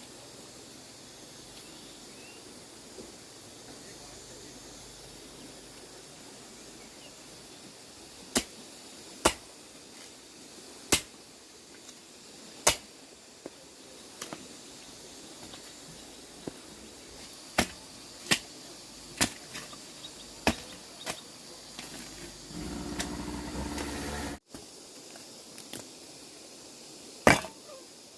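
A series of sharp knocks or taps, about a dozen at irregular spacing. A brief steady hum sounds for about two seconds near the end and cuts off abruptly.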